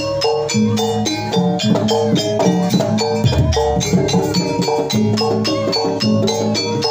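Jaranan (ebeg) accompaniment music: a fast, even run of struck tuned percussion notes over drums, playing without a break.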